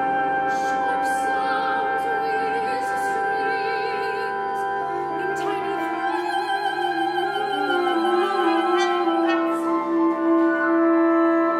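Contemporary chamber ensemble of winds, brass, strings, piano and percussion playing, with a soprano singing with a wide vibrato. A long held note builds from about eight seconds in to the end.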